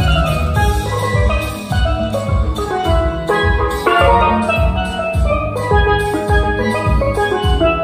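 A steelpan played solo with mallets: quick runs of struck, ringing metal notes over a backing track with a steady drum and bass beat.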